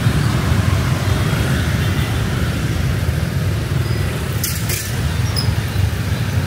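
Steady rumble of dense city street traffic, motorbikes and cars passing, with a brief hiss about four and a half seconds in.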